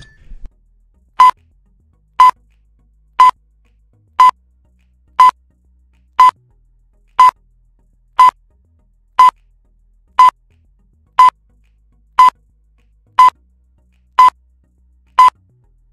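Countdown timer beeping: fifteen short, identical electronic beeps, one each second, as the count runs down.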